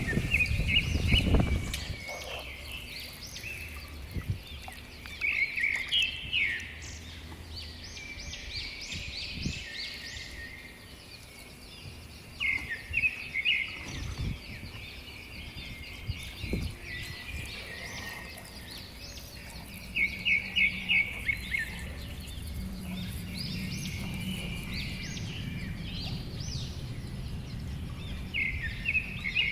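Wild birds singing and chirping in short repeated phrases, several of them loud. A low steady hum comes in about two-thirds of the way through, with a few knocks near the start.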